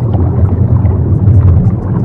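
Low, wavering ambient drone over a rumbling, noisy background with faint scattered crackles. This is the backing bed of a subliminal affirmation track, which is built on a delta-wave frequency.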